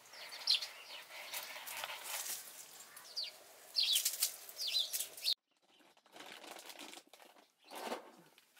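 Kittens scuffling and running over dry leaves and mulch, making rustles and light scrapes, with short high bird chirps in the background. About halfway through the sound drops abruptly to faint rustling.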